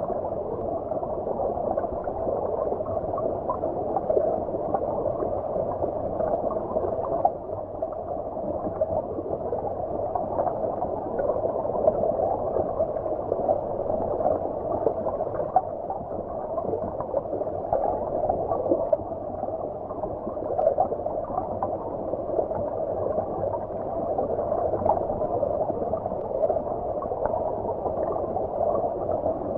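Flowing stream water heard from underwater: a steady, muffled gurgling and bubbling rush with the treble cut away.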